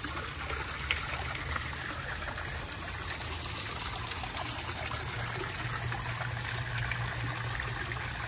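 Water from a pond waterfall splashing steadily into a lined garden pond, with a low steady hum underneath.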